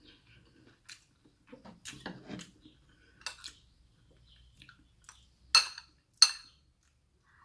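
Metal cutlery clinking against a plate while eating: soft scrapes and taps, then two sharp ringing clinks about a second apart near the end.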